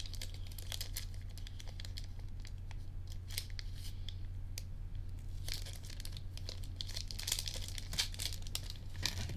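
Plastic crinkling and rustling with scattered small clicks, as packaging of trading-card sleeves is handled, over a low steady hum.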